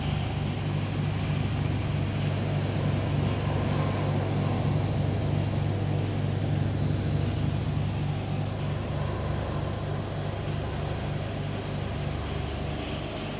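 A steady low mechanical hum with a slight regular pulsing in it.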